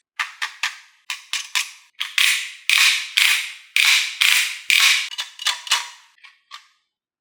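Marbles clattering down a marble run: a quick series of sharp clicks and clacks that crowds into a dense rattle in the middle, then thins out to a few last faint clicks.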